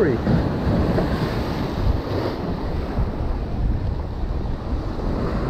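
Ocean surf breaking and washing over shoreline rocks, with wind buffeting the microphone in a steady low rumble.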